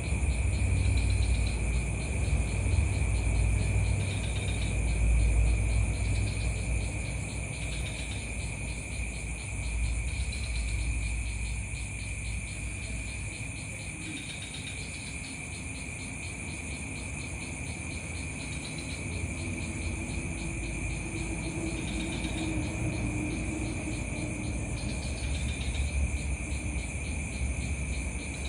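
Crickets and other night insects chirring steadily at several pitches, with a short higher chirp repeating every two or three seconds, over a low rumble.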